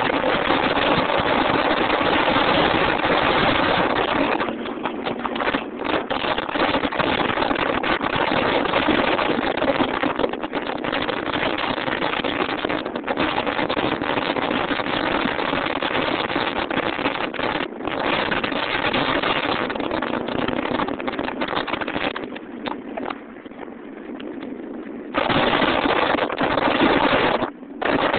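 Subaru Impreza WRX STI driving at speed, its turbocharged flat-four engine running beneath a loud, steady rush of wind on the microphone. The noise drops out briefly a few times and eases for a few seconds near the end before coming back loud.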